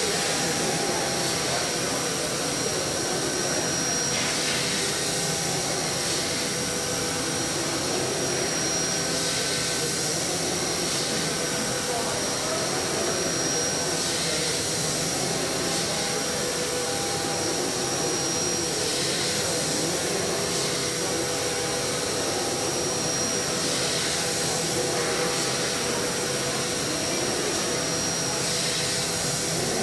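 CNC machining center milling aluminum: the spindle and end mill cutting metal with a steady running noise and a high whine that drops out and returns every few seconds as the cutter works through its passes.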